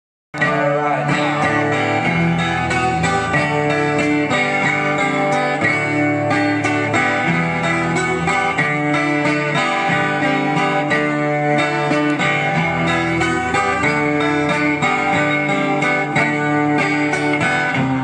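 Steel-string acoustic guitar played live, a steady run of chords that starts abruptly just after the beginning.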